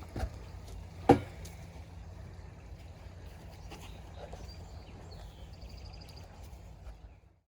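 Two sharp knocks about a second apart, the second much louder, over a steady low rumble, with a faint high trill a little past the middle. The sound cuts off abruptly just before the end.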